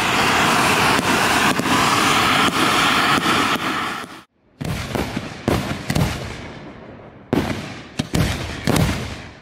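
Ground fireworks fountains hissing loudly and steadily, cut off abruptly about four seconds in. After a short gap comes a run of sharp firework bangs, about eight at uneven spacing, each dying away quickly.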